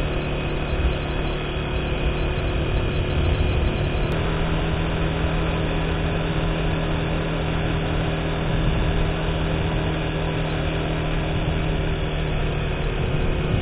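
Engine of a moving vehicle running steadily under way, with road and air noise. The engine hum rises slightly in pitch about four seconds in.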